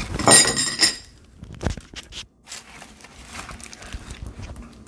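Cardboard shipping box being handled on a table: a loud rustling scrape in the first second, then quieter with a few soft knocks and rustles.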